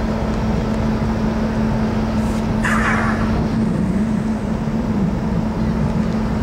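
Car ferry Tokiwa Maru's engines droning steadily across the harbour with a constant low hum as the ship pulls away from its berth. A brief rushing hiss passes about two and a half seconds in.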